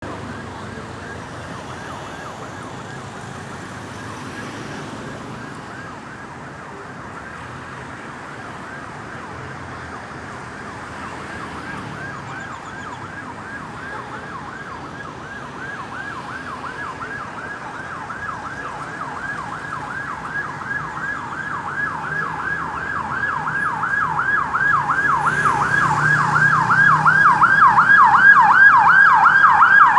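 Ambulance siren sounding a rapid yelp, its pitch sweeping up and down several times a second, faint at first and growing steadily louder as the vehicle approaches.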